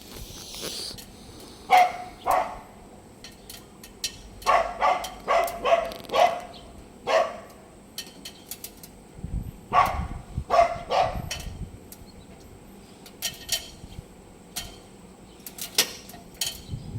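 A dog barking in short bursts, several barks at a time with pauses between, over scattered light clicks and knocks.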